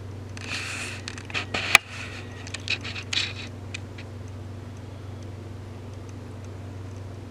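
Steady low hum of a fan, with a few seconds of scraping and rustling handling noise and several sharp clicks about half a second in, the loudest click near two seconds.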